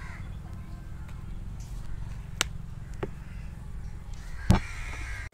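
A few sharp knocks as a tough green elephant apple (chalta) is pried apart by hand and its pieces set down on a wooden cutting board: two small knocks, then a louder one about four and a half seconds in, over a steady low background rumble.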